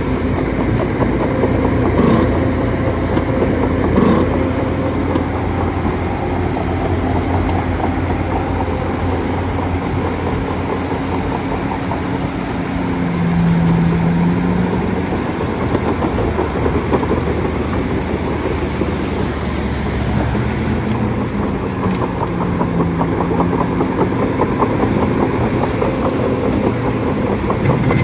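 Bulldozer's diesel engine running steadily, with a couple of sharp metallic clanks a few seconds in. A pitched whine rises and falls twice, once around the middle and once later on.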